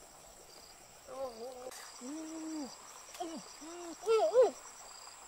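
A woman making a string of short 'ooh' sounds with pursed lips, each rising and falling in pitch, the loudest two close together about four seconds in. Insects buzz steadily in the background.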